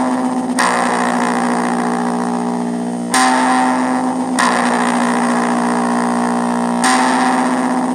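Slow music of held, distorted guitar chords drenched in effects, a new chord struck every one to two and a half seconds, each left ringing.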